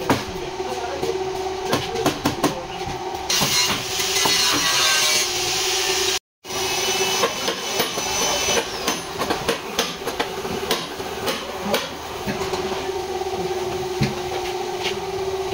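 Irregular hammer blows on a wooden block held against the bent steel front frame and inner apron of a 2005 Toyota Prado, knocking the crash damage back into shape, over a steady machine hum. A stretch of hiss comes a few seconds in, and the sound drops out briefly near the middle.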